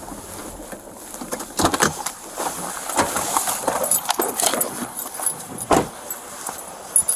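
Keys and metal gear jingling and rattling on the wearer of a body-worn camera as he moves, with scattered knocks and one sharper knock near the end.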